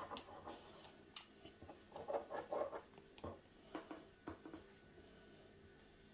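Pizza cutter wheel rolling and scraping through dough on a floured countertop, with dough handling and a few light clicks, fading to quiet room tone for the last second or so.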